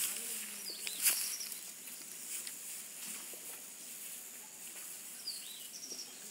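Dry straw and fibre rustling and crackling under hands as the fibre is pulled apart and spread, with a sharp click about a second in. A bird chirps briefly twice: about a second in and near the end.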